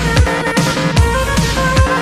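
Electronic background music with a steady beat: deep bass hits that drop in pitch, under held synth notes.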